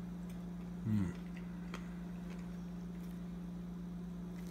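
Quiet room tone with a steady low hum. A brief low hum of the voice comes about a second in, and there are a couple of faint clicks.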